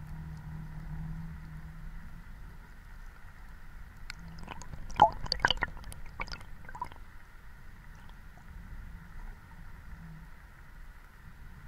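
Underwater sound picked up by an action camera in its waterproof housing: a steady low hum and water noise, with a cluster of sharp clicks and gurgles from about four to seven seconds in, loudest near five seconds.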